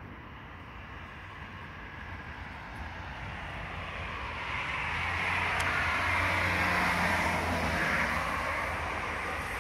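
A car driving past on the street. Its tyre and engine noise swells from about three seconds in, is loudest a little past the middle with a low steady engine hum, and eases off slightly near the end.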